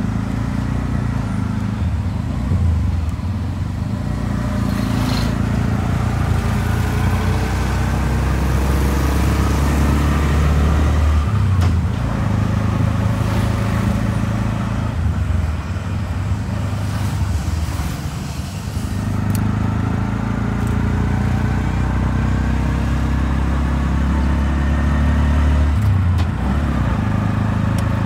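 Small engine of an auto-rickshaw (tuk-tuk) running under way, heard from inside the cab with road noise. The engine note dips twice, about 11 and 18 seconds in, then climbs again as it speeds up.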